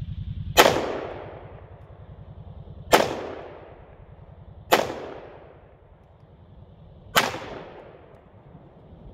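Four shots from a Smith & Wesson M&P 5.7 pistol firing FN 5.7x28mm green-tip rounds, spaced about two seconds apart. Each sharp crack trails off over about a second.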